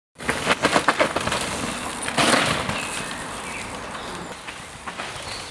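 Mountain bike riding on a dirt forest trail: tyres crunching over dirt and twigs, with a quick run of cracks and knocks in the first second and a louder clattering burst about two seconds in.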